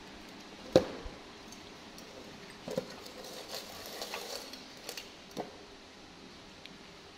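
A few sharp clinks and knocks of tableware against a large aluminium rice pot and a steel bowl. The loudest clink comes about a second in, with softer taps and some scooping or rustling noise later.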